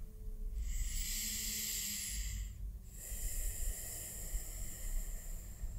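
A person breathing deeply and audibly through the airway in a yoga pose. Two long, slow breaths, each an airy hiss, with a short pause between them about two and a half seconds in.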